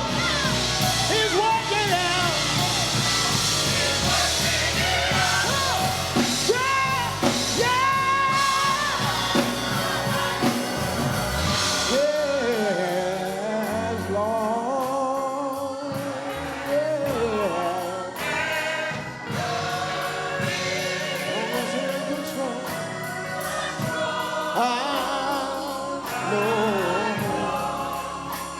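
Gospel singing with a choir and instrumental accompaniment; the backing thins out about twelve seconds in, leaving the voices more exposed.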